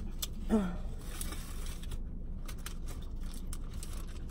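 Paper napkins and food wrappers being handled, with scattered sharp crackles and clicks over a steady low hum. About half a second in, a brief vocal sound falls in pitch.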